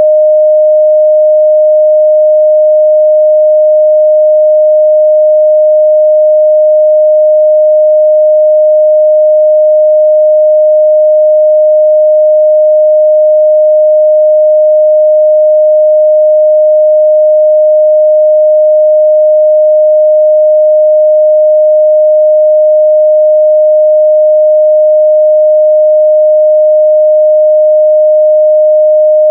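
A steady, loud 614 Hz pure sine tone at constant pitch and level: an audio test tone for checking speaker and headphone response.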